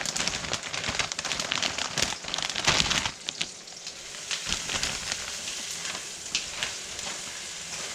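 Onions sizzling and crackling in hot olive oil in a wok as they are stirred, with knocks and scrapes of the stirring utensil, busiest in the first few seconds, then a steady sizzle with scattered pops.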